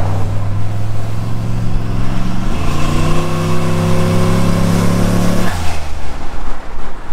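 Single-turbo Chevrolet Silverado's engine running steadily, then pulling hard under full throttle about two seconds in, its pitch climbing for about three seconds before cutting off abruptly when the throttle comes off, followed by a rush of noise.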